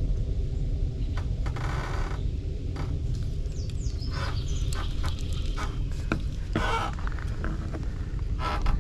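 Steady low rumble of wind on the microphone, broken by scattered clicks and four short rasping bursts.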